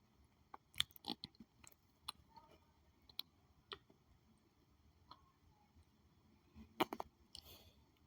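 Faint, scattered small clicks and handling noises, with a short cluster of louder clicks about seven seconds in.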